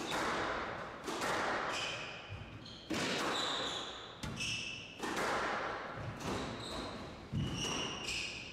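Squash rally: the ball struck by rackets and hitting the walls about once a second, each hit ringing out briefly in the glass-walled court, with short squeaks from the players' shoes on the wooden floor between hits.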